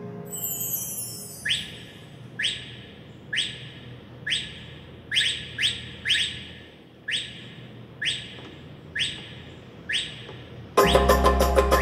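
Korg Pa700 arranger keyboard playing a bird-song sound effect: a few falling sweeps, then short chirps about once a second as keys are pressed. Near the end a full accompaniment style starts suddenly and loudly, with bass and quick percussion.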